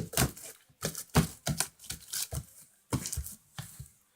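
Slime being handled and stretched: a string of irregular sticky clicks and crackles.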